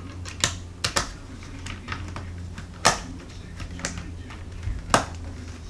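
Scattered sharp clicks and taps of a screwdriver and the plastic multimeter case being handled during reassembly, the loudest about three and five seconds in, over a low steady hum.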